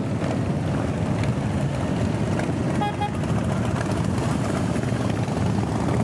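Steady rumble of a large mass of motorcycles riding past, with a short two-beep horn toot about three seconds in.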